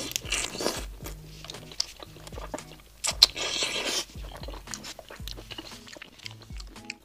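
Close-miked eating: biting into and chewing a large shell-on prawn in spicy sauce, many short clicky mouth sounds with two longer noisy bursts, one at the start and one about three seconds in.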